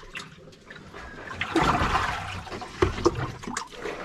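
Flood water being bailed by hand out of a boat's compartment: swells of sloshing and pouring water, with a few sharp knocks near the end.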